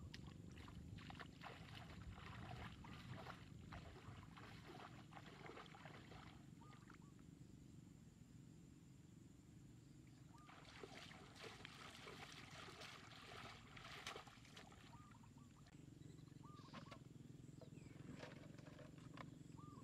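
Faint, steady low drone, with spells of crackling splashes as feet wade through shallow floodwater among grass.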